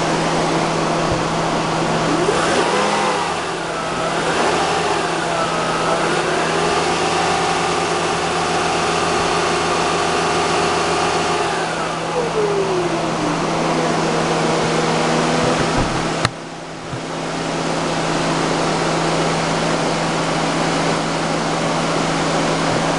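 Toyota RAV4 engine running under an alternator load test with the electrical loads switched on, its revs rising and falling a couple of times over a steady hum.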